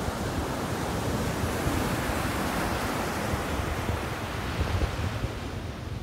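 Ocean surf breaking and washing up the sand. The hiss swells a second or two in and eases off near the end, over a low, gusty buffeting of wind on the microphone.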